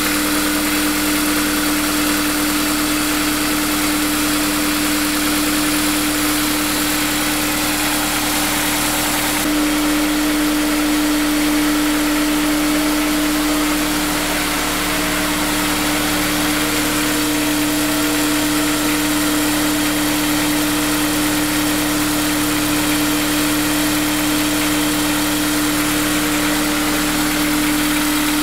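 Honda S2000's four-cylinder engine idling steadily at a normal idle. The owner wonders whether its sound points to a timing chain tensioner problem.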